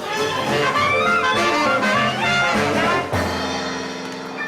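A jazz band with horns playing a quick, moving melody, then landing on a held chord about three seconds in.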